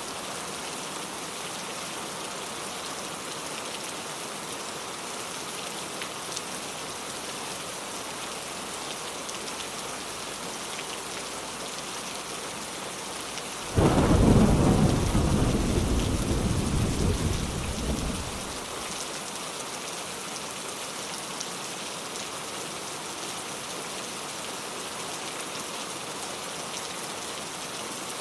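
Steady rain falling, with a sudden loud clap of thunder about 14 seconds in that rumbles and fades over about five seconds.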